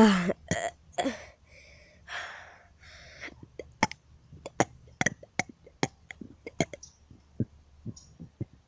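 A loud burp trails off right at the start, followed by faint breathing and a string of short, irregular clicks, about two or three a second.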